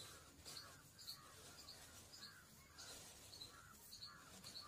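Near silence with faint bird calls in the background: short chirps repeating every half second to a second.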